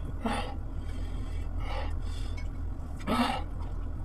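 Mukbang eating noises: a few short bursts from fingers working fish soup and wheat swallow, and from the mouth as a bite goes in, the last about three seconds in being the loudest, over a steady low hum.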